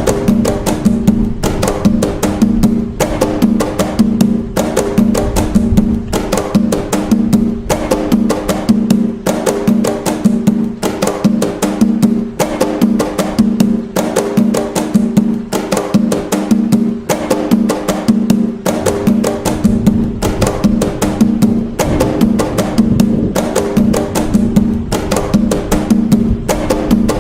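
Atabaque hand drum playing the nagô rhythm (toque de nagô) of Umbanda: a fast, unbroken repeating pattern of strokes with a ringing low drum tone.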